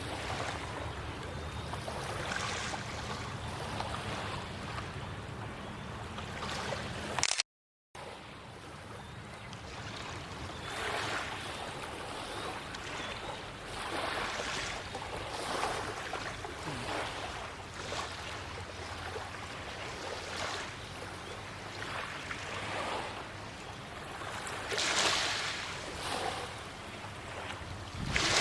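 Small waves washing against the shore in irregular surges every second or two, with some wind on the microphone. A low steady hum sits under the first seven seconds, then the sound cuts out briefly.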